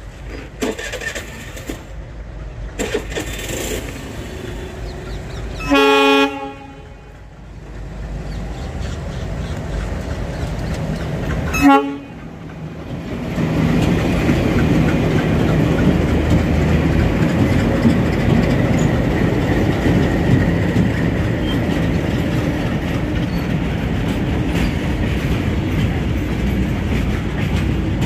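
A diesel train's horn gives a short blast about six seconds in and a brief second toot near twelve seconds. Then the train runs close by with a loud, steady rumble of engine and wheels.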